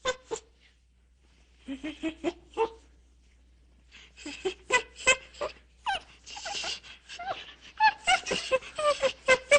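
A canine giving a quick run of short yips and whines, some of them bending in pitch. A brief cluster comes about two seconds in, after a pause, and the calls come thick and fast from about four seconds on.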